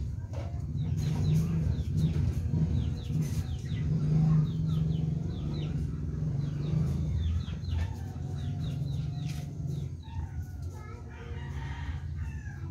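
Backyard chickens: a rooster crowing about eight seconds in, amid clucking and many short high chirps. A steady low rumble underlies it all and is the loudest sound.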